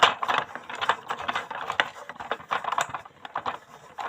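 Small plastic parts of a toy bin lorry clicking and rattling as they are handled and pulled apart: an irregular run of light clicks, the first the loudest.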